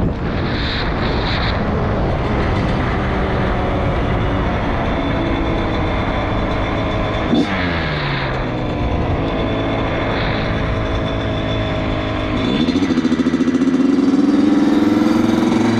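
Dirt bike engine running while riding. About seven seconds in there is a sharp click and the engine note falls. Near the end the note climbs again and grows louder as the bike accelerates.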